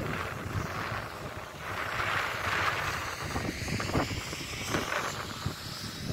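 Wind buffeting the microphone in gusts, over the low running of a tracked excavator's diesel engine working some way off.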